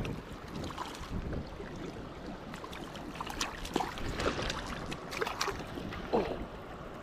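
River water rushing over rocks with wind buffeting the microphone, and from about three seconds in a series of short splashes and knocks as a hooked fish is drawn thrashing to the rocks.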